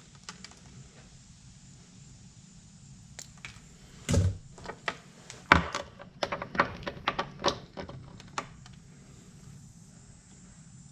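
A hand wire stripper clicking and snapping as insulation is stripped from wires. A thump comes about four seconds in, then a quick run of sharp clicks for about four seconds.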